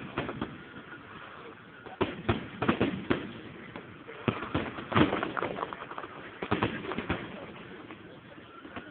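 Fireworks shells bursting: several bangs in quick clusters, the densest run of reports a little before the middle, over background crowd chatter.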